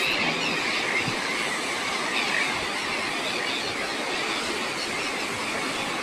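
Steady rushing noise of surf washing over a rocky shore, mixed with wind. It holds at an even level throughout.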